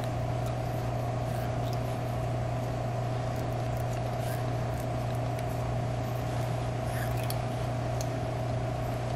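A steady low hum with a higher tone above it runs throughout at an even level. Over it come faint scattered crackles of vinyl electrical tape being pulled off the roll and wrapped tight around a coaxial cable connector.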